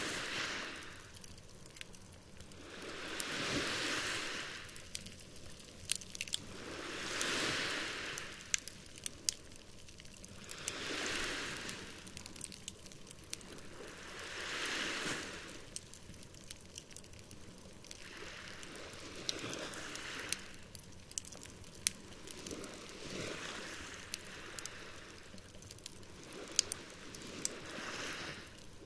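Small sea waves washing onto the shore in slow surges about every four seconds, larger in the first half, while a wood campfire crackles and pops with sharp snaps throughout.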